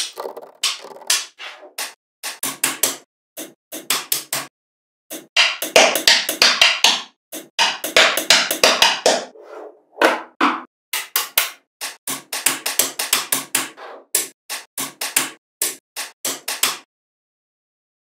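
Small magnetic balls clicking and snapping together in quick runs of sharp clicks, with denser clattering clusters from about five to nine seconds in.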